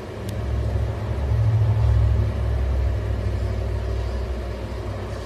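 A low rumble that swells about a second in and fades over the next few seconds, with one brief click near the start.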